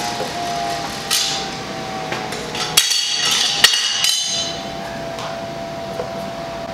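Aluminum plates knocking and clinking on a steel welding table as they are handled and set in place. There are a few sharp knocks, the loudest with a brief metallic ring about three to four seconds in, over a faint steady hum.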